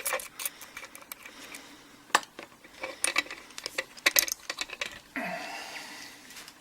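Scattered small metallic clicks and taps as the picked-open Mul-T-Lock Garrison G10 padlock and the lock picks are handled and taken out. A short drawn-out sound comes about five seconds in.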